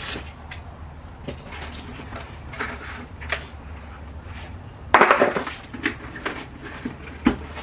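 Parts and packaging being handled during an unboxing: scattered light knocks and clicks, with a louder rustling scrape about five seconds in.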